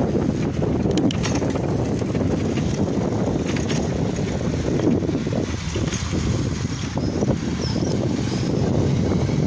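Wind buffeting the microphone of a camera carried on a moving bicycle: a loud, steady low rumble, with a few faint clicks.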